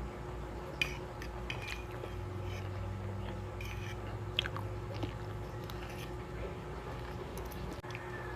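A person chewing and biting food close to the microphone, with scattered short crisp crackles.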